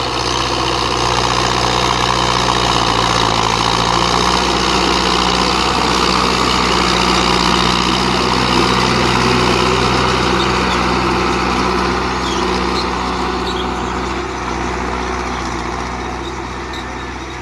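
Belarus 510.1 tractor's diesel engine running steadily while pulling a five-tine chisel plough, fading somewhat over the last few seconds.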